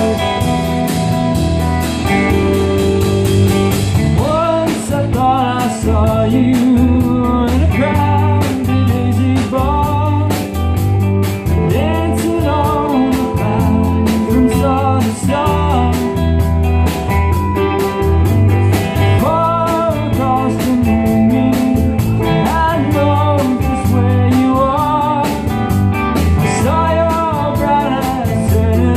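Live rock band playing: two electric guitars and a drum kit, with a man singing lead.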